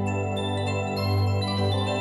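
Background music: held low chords with bell-like notes on top.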